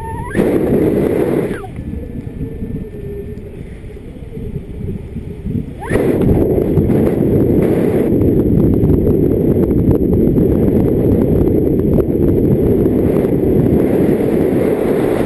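Wind rushing and buffeting over the camera microphone of a paraglider in flight. A strong gust comes about half a second in and eases after a second, then the rush rises again about six seconds in and holds steady and loud.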